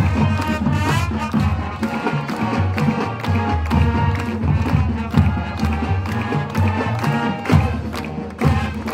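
Marching band playing a tune: saxophones and brass over low stepping bass notes, with a drumline of bass drums and snares beating steadily underneath.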